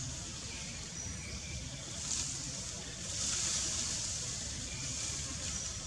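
Outdoor forest ambience: a steady low rumble under a high hiss that swells for about a second near the middle, with a few short, high chirps.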